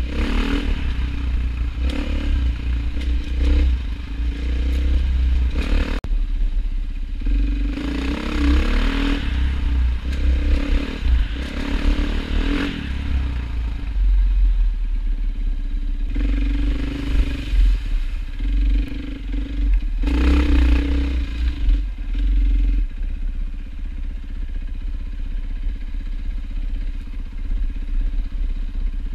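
A motor vehicle's engine running with a deep, steady rumble, mixed with repeated clattering and rattling knocks; the knocking eases off after about twenty-three seconds.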